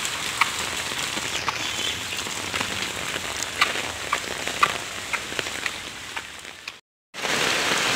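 Steady monsoon rain hissing on a wet street, with scattered sharp ticks of drops close by. The sound cuts out completely for a moment about seven seconds in, then the rain comes back slightly louder.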